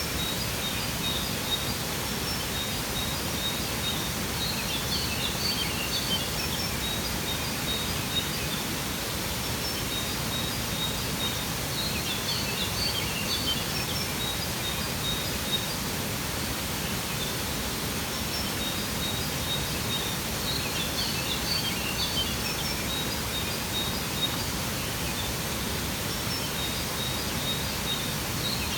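Steady rushing of a waterfall, with birds chirping in short clusters that come back every several seconds.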